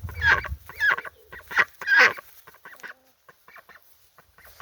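Goose honking: several loud honks in the first two seconds, then only faint calls.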